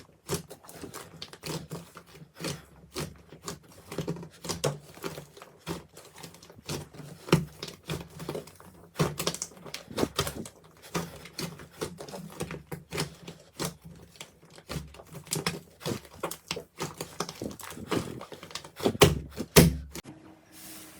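Slime being squeezed and pressed by hand, giving a dense run of irregular sticky clicks and pops, with the loudest pops shortly before the end.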